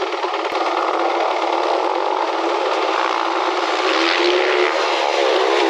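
Dirt bike engine running at low speed, its pitch wavering up and down with the throttle, most clearly about four seconds in.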